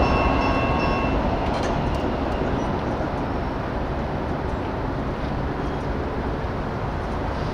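Light rail train running past, its rumble slowly fading. A few high steady ringing tones stop about a second in.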